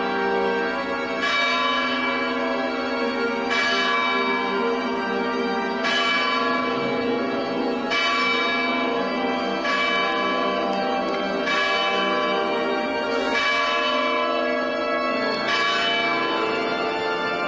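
Church bell ringing, struck about every two seconds, each stroke ringing on into the next.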